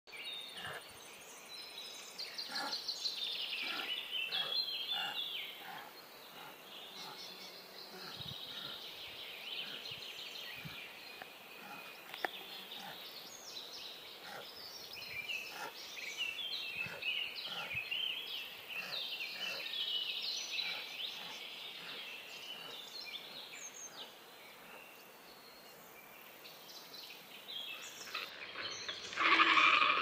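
Small birds chirping and twittering, several at once, in a steady chorus of short high calls. Near the end a louder, harsh rasping call breaks in.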